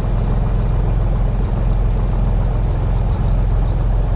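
Cessna 182 Skylane's piston engine idling steadily with the propeller turning slowly, heard inside the cabin.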